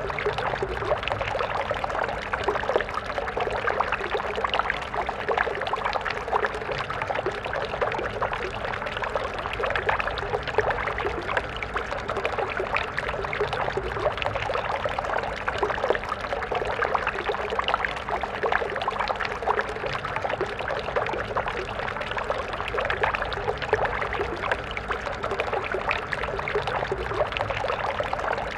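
Stream water flowing and babbling steadily, a continuous splashing rush.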